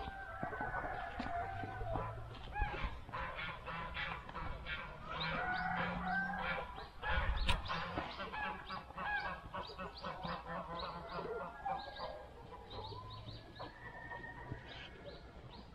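Free-range chickens calling: many short squawking cackles overlapping in quick succession, after a long held crow-like call at the very start. A single thump comes about seven seconds in.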